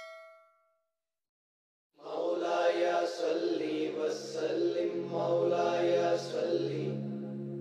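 A short bell-like ding that fades out, then about two seconds in a voice begins chanting in long drawn-out notes over a low steady drone, as in an Islamic devotional recitation.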